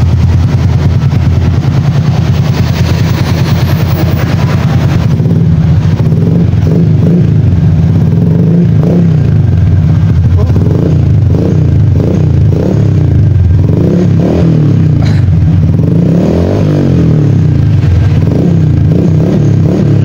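Honda Wave 125's single-cylinder four-stroke engine running loud through an aftermarket dual-tip muffler. Its revs rise and fall again and again under the throttle from about five seconds in.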